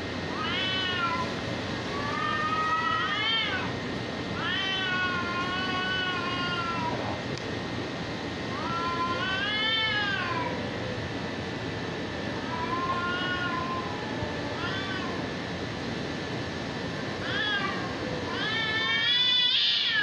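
Cats yowling at each other in a standoff: a string of long, wavering wails that rise and fall in pitch, some brief and some drawn out for a couple of seconds, the loudest near the end. These are the threat calls that come before a fight.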